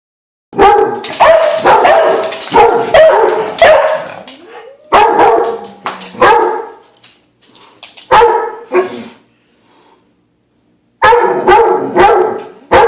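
Dogs barking repeatedly in loud bursts at a cat, with a pause of about a second before the barking starts again near the end.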